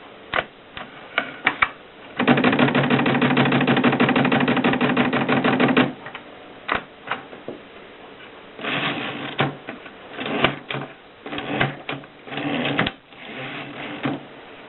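Mercedes Selekta typewriter being typed on. A few separate key strikes come first, then a rapid unbroken run of strokes for about four seconds, then more bursts of keystrokes.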